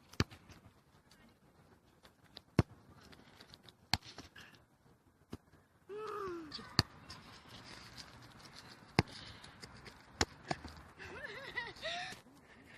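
A football being kicked and bouncing: sharp single thuds at uneven intervals, roughly one every second or two.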